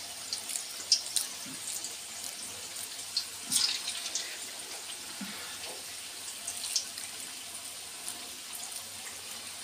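Vegetable Manchurian balls deep-frying in hot oil in an aluminium kadhai: a steady sizzle with scattered crackles and a few louder pops.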